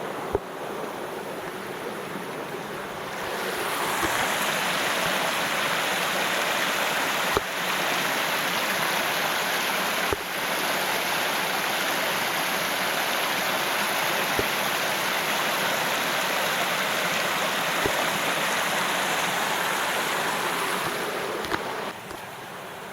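Creek water rushing steadily through and over a cinder-block dam, swollen after heavy rain; it grows louder about three and a half seconds in and drops back near the end.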